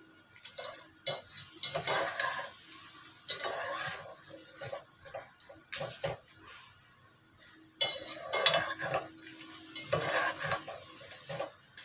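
A slotted spatula scraping and knocking against a pot at irregular intervals as pieces of frying food are stirred and turned.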